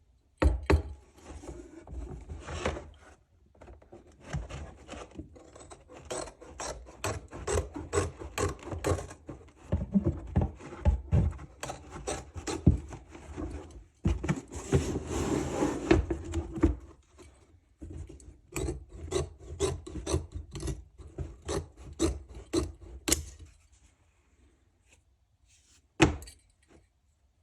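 Pair of scissors being worked: a long run of short, sharp snipping and rasping strokes, with a denser continuous stretch about halfway and one last stroke near the end.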